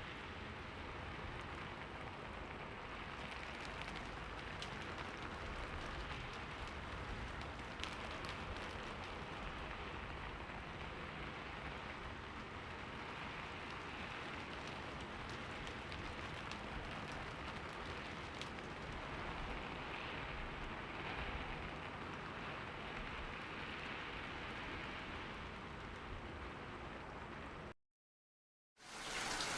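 Steady rainfall, a constant hiss with scattered faint drop ticks. It cuts out to silence for about a second near the end, then comes back a little louder.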